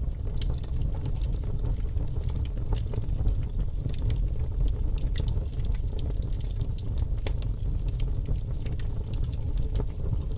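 Fire burning: a steady low rumble with irregular sharp crackles and pops throughout.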